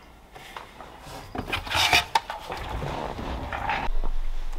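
Dakota Lithium 23Ah battery case being opened by hand: irregular scraping and rubbing with small clicks and knocks, starting about a second in.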